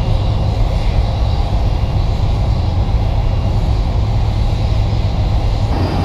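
Loud, steady low rumble of jet aircraft engines at an airport, shifting slightly near the end.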